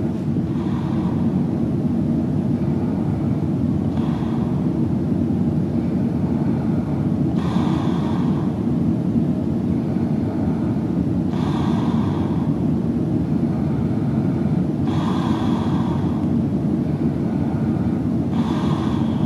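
A sleeping person snoring softly with the mouth open: six breaths, one about every three and a half seconds, over a steady low rumble that is the loudest sound.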